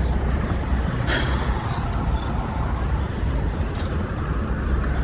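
Steady city street traffic noise with a low rumble, and a short hiss about a second in.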